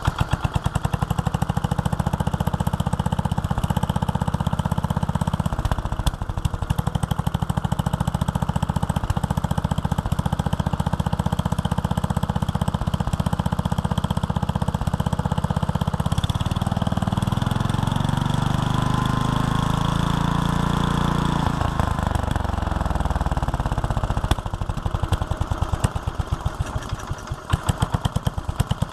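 A 9HP Briggs and Stratton single-cylinder stationary engine running steadily, just started, untuned and without its air cleaner. About two-thirds of the way in it revs up and drops back. Near the end the firing turns uneven and lumpy.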